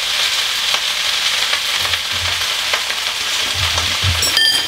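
Fried rice sizzling in a wok on high heat, with a utensil stirring through it now and then. A brief ringing clink just before the end.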